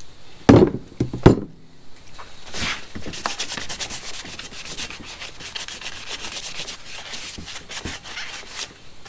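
A few sharp knocks on metal, then about six seconds of fast, rhythmic hand-scrubbing strokes on metal, sanding-like, as the bared spot is cleaned up before painting.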